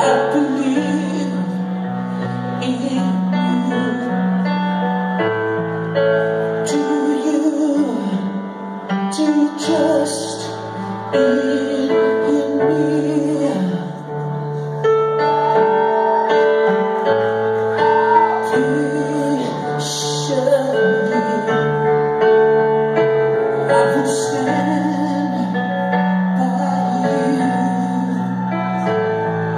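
Rock band playing a slow power ballad live, heard from the audience: a man singing the lead melody over long held keyboard chords.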